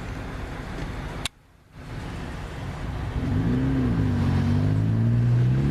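Car engine running, then accelerating from about three seconds in, its pitch and loudness rising steadily. A brief half-second gap in the sound comes a little over a second in.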